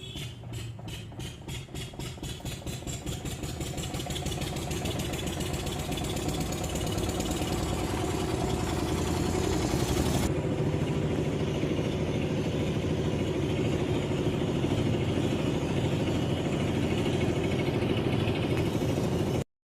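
An engine whose separate beats come quicker and quicker until they merge into a steady run, growing louder, then cutting off abruptly near the end.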